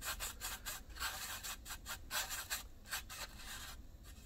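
Small paintbrush swishing and scratching against a foam tray palette as paint is mixed, in quick repeated strokes, several a second.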